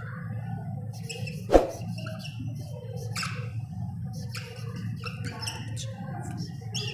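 Whiteboard marker squeaking against the board in short, irregular strokes as words are written, with a single sharp knock about a second and a half in, over a steady low hum.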